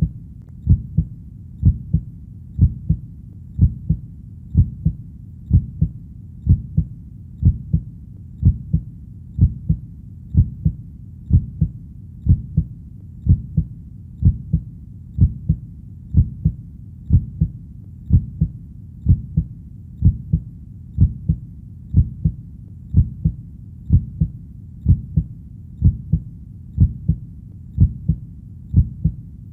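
Heartbeat, each beat a low double thump (lub-dub), repeating steadily at about one beat a second over a faint low hum.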